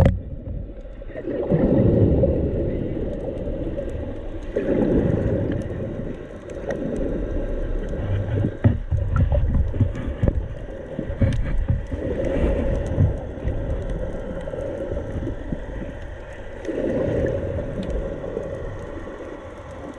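Muffled rush of sea water heard through an underwater camera, swelling and fading every few seconds as waves surge, with scattered small clicks.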